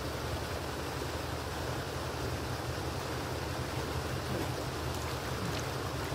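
Steady rushing outdoor background noise, even throughout, with no distinct knocks or splashes standing out.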